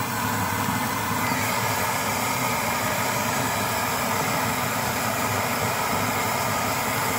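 1920s Primus pressure stove burner running flat out with a steady rushing noise. It cannot be turned down: the heat can only be eased by lifting the pan higher.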